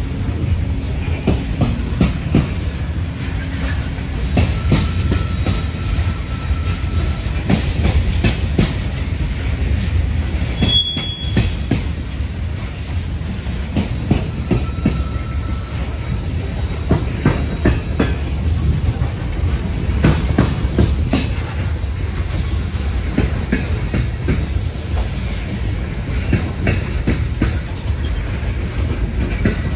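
Loaded coal train's steel hopper cars rolling past with a steady rumble, their wheels clicking and knocking irregularly over the rail joints. A couple of brief, thin wheel squeals come through partway along.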